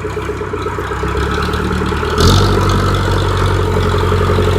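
Diesel engine of a Case 580E backhoe running, heard from inside the cab. A little before halfway through it steps up louder and heavier, with a short hiss as it does.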